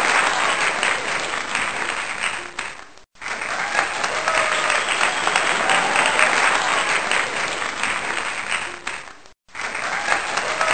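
Applause, a crowd clapping steadily, cutting out abruptly for a moment about three seconds in and again near nine and a half seconds.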